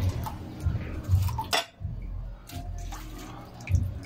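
Kitchen handling sounds: a stainless steel bowl of cut sweet potato pieces in water knocking and clinking as the pieces are lifted out and put into a pot, with one sharp clink about a second and a half in.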